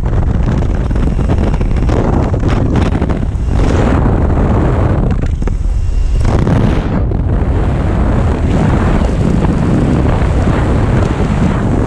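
Steady rush of wind and propeller-engine noise through the open door of a small jump plane in flight, buffeting the microphone.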